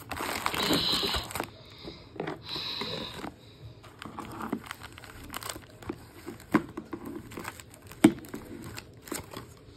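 Plastic toy packaging crinkling and rustling as action figures are worked out of it, with irregular crackles and scattered clicks, one sharp click about eight seconds in.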